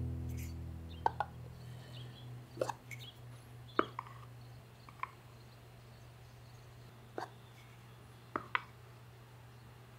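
Light wooden clicks and knocks, about nine short taps spread out, as a cherry wood hand mirror's handle is handled and set into the socket of its cherry tray. Background music fades out over the first few seconds.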